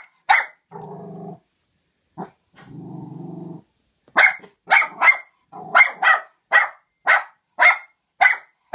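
A dog gives a sharp bark, growls low twice for about a second each, then barks sharply over and over, about two barks a second.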